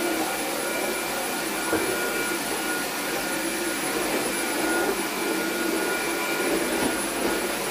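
Dyson V7 Animal cordless stick vacuum running steadily as it vacuums: an even whir with a thin high whine over it.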